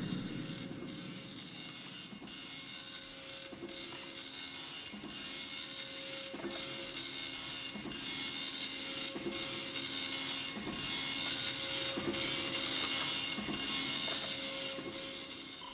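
A rhythmic, hissing mechanical noise with a short break about every second and a half, over a faint steady tone; it grows a little louder toward the end.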